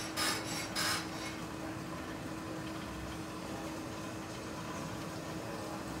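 Steady running noise of a steam engine, with a constant low hum. Two short hissing bursts come within the first second.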